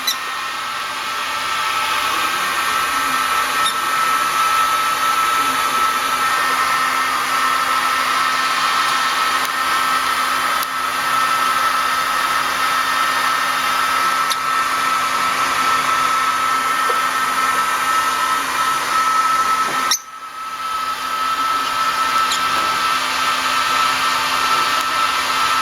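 Hair dryer blowing steadily, with a high whine over its rushing air. It cuts out briefly about twenty seconds in and comes back on.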